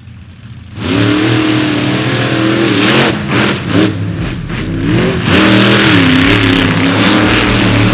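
Monster truck engines revving hard, the pitch rising and falling again and again as the trucks drive and spin through loose sand, over the rush of tyres and engine noise. The sound fades in, then jumps to full loudness about a second in.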